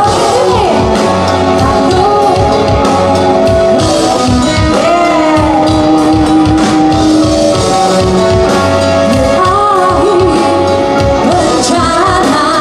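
Rock band playing live, a woman singing lead over electric guitar; she holds long notes and slides between pitches.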